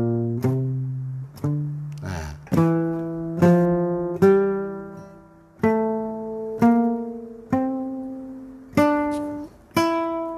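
Nylon-string classical guitar played with a pick, single notes of an F major scale three notes per string, one note at a time about once a second. Each note rings and dies away before the next, the scale climbing step by step.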